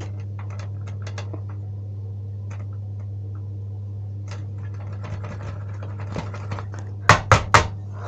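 Faint clicks of a ceiling ionization smoke alarm's test button being pressed again and again, with no alarm sounding: its battery is flat. A steady low hum runs underneath, and three louder knocks come near the end.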